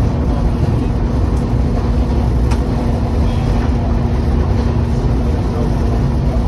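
Amtrak Piedmont passenger train in motion: a steady, heavy low rumble with a constant hum running through it and a few faint clicks.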